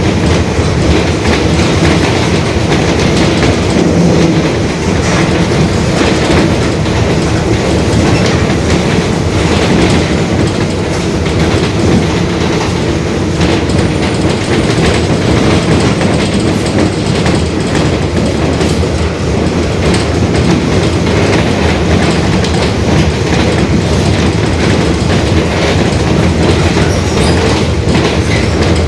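Mercedes-Benz OF-1721 Bluetec 5 bus under way: steady diesel engine and drivetrain noise with a droning growl from the differential, over constant body rattles and clatter.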